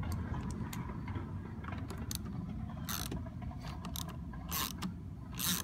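Small screws being run into a plastic instrument cluster housing with a 7/32-inch nut driver: scattered light clicks of the tool, with three short rasping scrapes in the second half.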